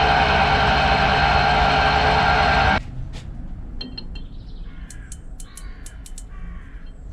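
Metal lathe running steadily while turning a steel stud, then switched off about three seconds in, its noise cutting out abruptly. After it, a crow caws several times.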